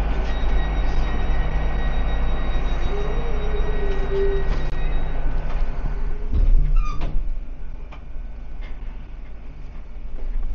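Passenger train running: a steady low rumble with faint high whining tones, a brief louder squeal about six and a half seconds in, then quieter from about eight seconds in.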